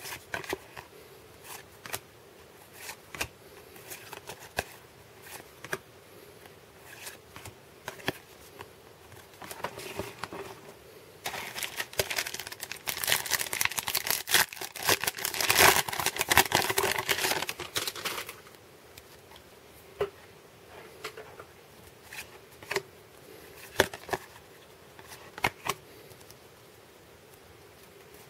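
Baseball cards being flipped one at a time, a light click of card stock every second or so. From about 11 to 18 seconds a sealed card pack's wrapper is torn open and crinkles, the loudest part, after which the card flipping resumes.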